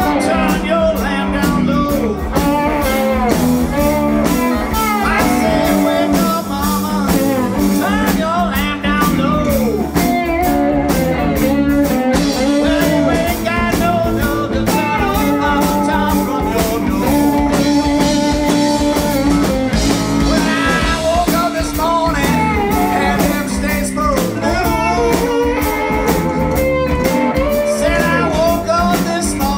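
Live blues-rock band playing: electric guitars over bass and drums, with a male lead vocal.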